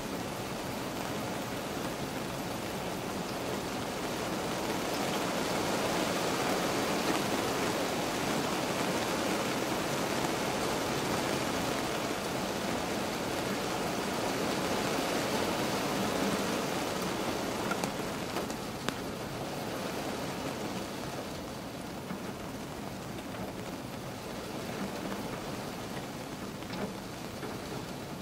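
Steady rain falling on a car's roof and windscreen, heard from inside the cabin. It grows heavier about five seconds in and eases off after about twenty seconds, with a couple of sharper single drop ticks.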